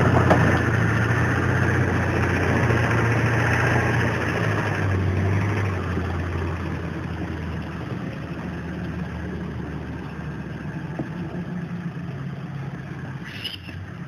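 A vehicle engine runs steadily as it hauls a trailer carrying a backhoe, its hum fading as it moves away over the second half.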